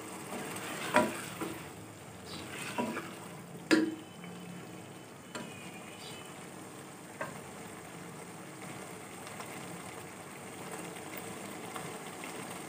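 Keema and peas sizzling as they simmer in a pot, while a spoon stirs and knocks against the pot several times in the first four seconds.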